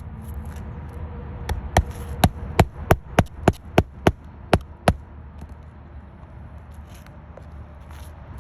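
A hammer striking about ten times in quick succession, roughly three blows a second, nailing during a shingle roof repair; the blows stop about five seconds in. A steady low rumble runs underneath.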